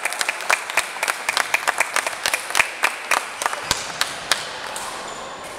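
A few people clapping: scattered, irregular claps that thin out and stop about four and a half seconds in.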